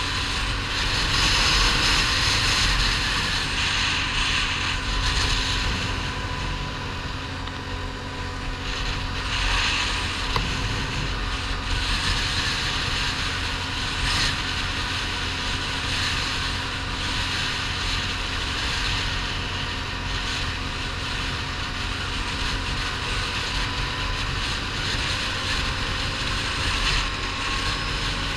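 ATV engine running steadily at cruising speed on a paved road, with wind rushing over the microphone.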